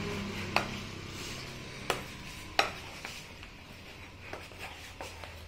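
Metal spoon knocking against a bowl while mixing food: three sharp clinks in the first three seconds, then fainter taps.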